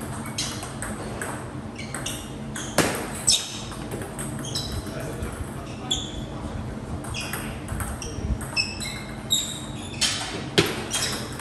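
Table tennis balls striking bats and tables: many quick, irregular clicks, each with a short high ring, with a few louder hits among them.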